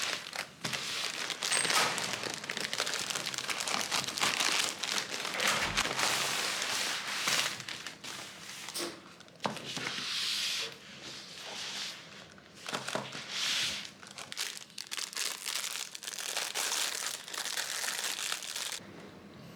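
Packaging being crumpled and torn open: irregular bursts of crinkling and rustling with a few sharp clicks, pausing now and then.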